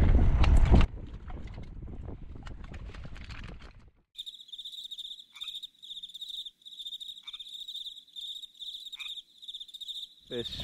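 Wind buffeting the microphone for about a second, then a quieter rumble. About four seconds in it cuts to an insect trilling steadily at a high pitch, crossed three times by a short falling whistle.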